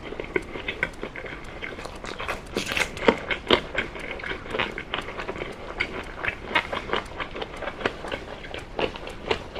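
Close-miked chewing of oven-baked chicken drumstick meat: a quick, irregular run of mouth clicks and smacks.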